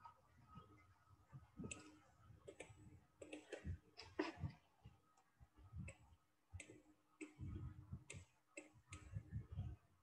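Faint, irregular clicks and taps, a few every second, over near silence.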